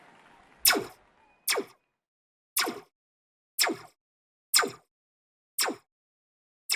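A sharp bang or knock repeated evenly about once a second, seven times, each dying away within a fraction of a second.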